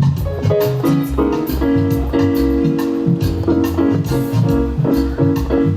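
A live band playing: sustained keyboard chords over a bass line and drum hits.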